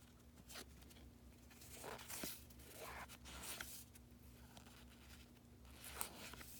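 Faint rustling and sliding of trading cards being handled and flipped through, with a few light clicks, over a low steady hum.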